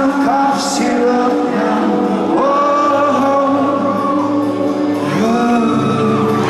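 Live rock band playing in a concert hall, a male lead singer holding long notes with sliding pitch over the band.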